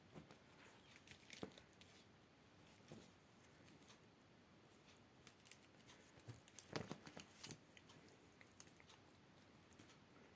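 Faint, scattered dry crackles and rustles of a dried grass spikelet being batted and pulled about by cats. The sharpest ticks bunch together about seven seconds in.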